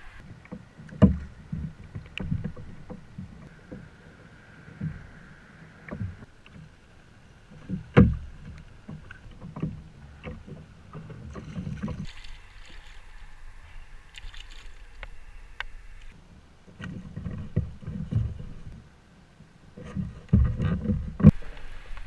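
Irregular thumps and knocks on a plastic sit-on-top kayak's hull and fittings as the angler shifts and handles the rod and gear. A few sharper knocks stand out: about a second in, about a third of the way through, and near the end.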